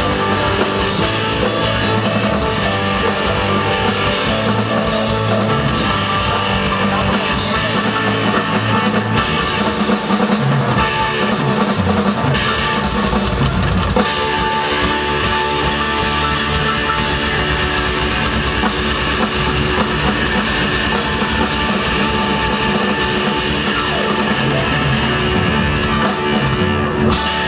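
A rock band playing an instrumental stretch: guitars and a drum kit, loud and steady throughout.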